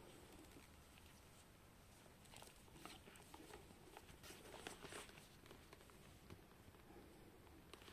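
Near silence, with faint rustling and small clicks of a Mango crossbody bag and its leather strap being handled on a cloth, mostly in the middle of the stretch.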